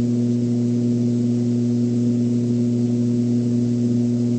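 Steady low electrical hum, a mains-type buzz with a stack of evenly spaced overtones, over a faint hiss.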